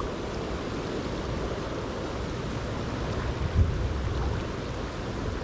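Steady rushing noise of a swollen river's flowing water, with wind on the microphone, and a single dull bump a little past the middle.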